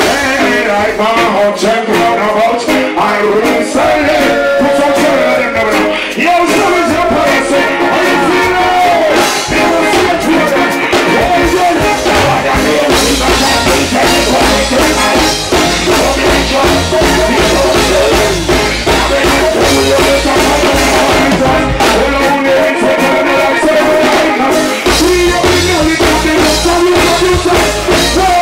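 Reggae music with a male voice singing over the band, played loud. A heavy bass line comes in about twelve seconds in.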